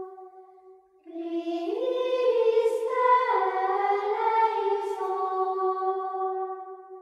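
Background music: a slow sung melody of long held notes. One phrase fades out just before a second in, and a new phrase starts and runs until it fades near the end.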